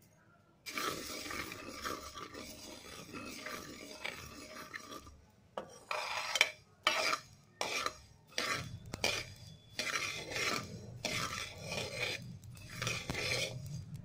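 Metal spoon scraping and stirring black mustard seeds around a hot, dry frying pan as they dry-roast, the seeds rattling over the pan's surface. It is a steady scraping from just under a second in, then separate strokes about once or twice a second.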